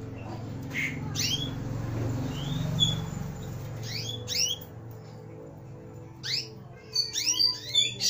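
Caged female canaries giving short, rising chirp calls: a few scattered at first, then in quick runs over the last two seconds. A low background murmur is strongest in the first few seconds.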